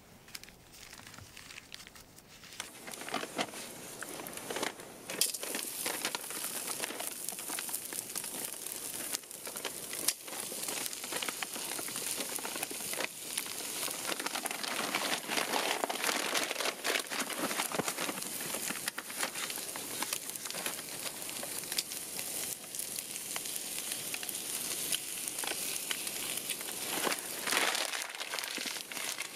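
Canadian bacon frying in a pan over a campfire: a steady sizzle with small crackles that starts about three seconds in, once the slices hit the hot pan. Paper crinkles as the bacon is taken from its wrapper.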